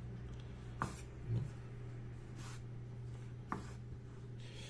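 Kitchen knife slicing a tomato on a wooden cutting board: three light knocks of the blade on the board and brief soft rubbing of the fruit and hand on the wood, over a steady low hum.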